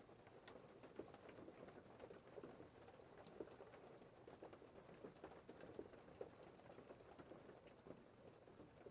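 Faint, irregular patter of falling precipitation, ice pellets or rain, with many small ticks a second and no steady rhythm.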